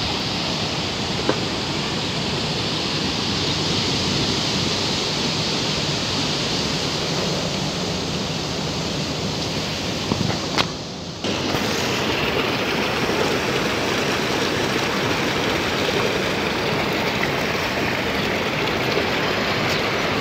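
Steady rush of water flowing through concrete trout-farm pools and channels. It drops out briefly about halfway through, then carries on slightly fuller.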